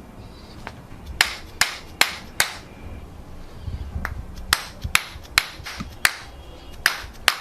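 A quick series of sharp cracks or clicks during a chiropractic adjustment, about two or three a second, in two runs of four or five with a short pause between.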